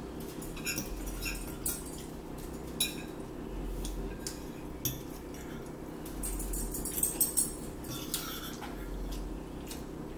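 Forks clinking and scraping against plates while eating, in scattered short clicks, over a steady low hum.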